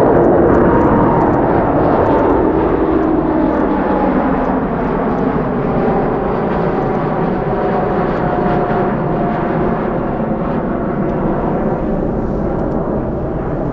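Airbus A350-941 jet airliner's Rolls-Royce Trent XWB turbofans at takeoff thrust as it climbs away, a steady jet roar with whining tones that slowly fall in pitch while the sound gradually fades.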